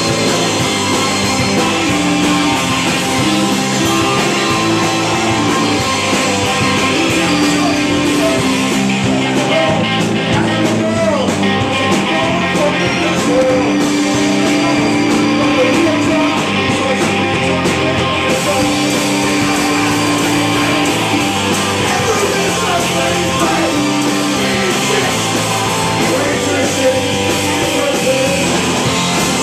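Live rock band playing loudly: electric guitar, bass guitar, drums and a keytar, with a man singing over them.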